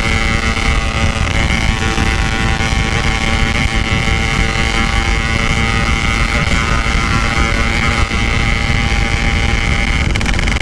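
Yamaha RX-King two-stroke single-cylinder engine running at steady high revs while riding, its exhaust buzzing at an even pitch. Wind rumbles on the microphone underneath.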